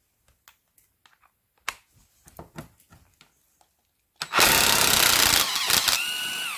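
Parkside cordless impact wrench hammering on a rusted bolt for about a second and a half, starting about four seconds in. It then runs on with a steady whine as the bolt turns, and winds down in pitch when the trigger is released. Light handling clicks of the tool come before it.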